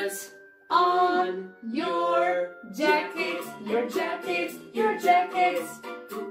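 Children's action song playing: a voice sings short, held phrases over a light instrumental accompaniment.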